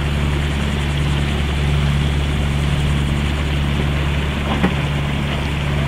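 A boat engine running steadily with a low, even hum, as the sailboat motors along, with a steady rushing hiss of wind and water over it.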